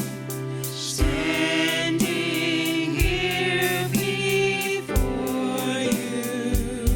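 Worship music: voices singing over a band, with held chords and a drum beat about once a second.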